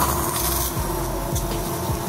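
Steady background hum at a hibachi griddle, with a brief hiss in the first half second as liquid is squirted from a squeeze bottle onto the hot steel.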